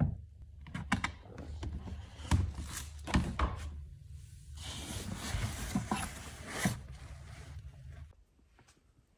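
Handling noise: scattered knocks and rustles as a plastic storage tote holding a clown doll is handled, over a low steady hum that stops about eight seconds in.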